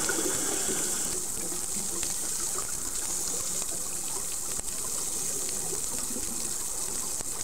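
Underwater ambience picked up by an underwater camera: a steady hiss with faint, irregular bubbling.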